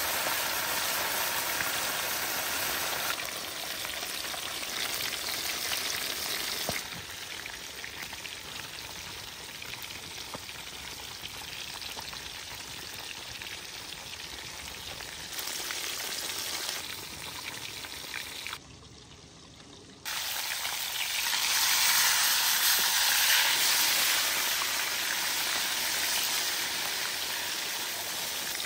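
Food sizzling as it fries in hot oil, a dense steady hiss whose level jumps several times, with a short quieter stretch about two-thirds of the way through.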